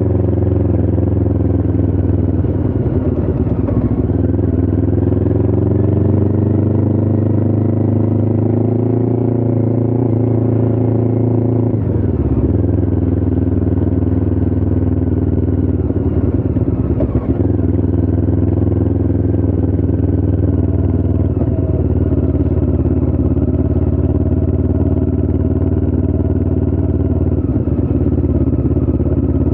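Motorcycle engine running under way, heard raw from the rider's point of view. The engine note climbs over the first several seconds, dips briefly twice around the middle, then holds steady.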